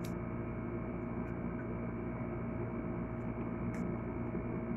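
A steady hum made of several held tones, unchanging in level, with a few faint short clicks over it.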